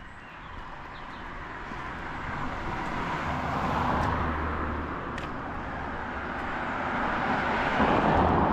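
Road vehicles passing by, the noise swelling and fading twice, loudest about four seconds in and again near the end.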